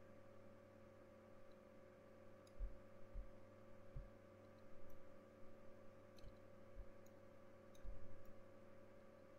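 Faint room tone with a steady electrical hum, broken by scattered soft low thumps and faint clicks from someone working at a computer desk, about six in all and uneven in spacing.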